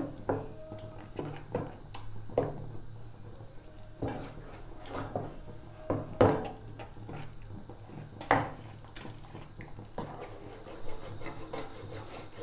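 Spatula scraping and stirring thick blended mustard-greens saag against a non-stick pan as maize flour is worked in and the saag is fried down, in irregular strokes with a louder scrape every second or two.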